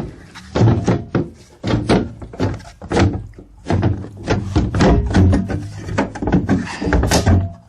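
Irregular heavy knocks, thunks and rattles from a van's rear door handle assembly being yanked and worked loose from the door, with about a dozen strikes, some sharp.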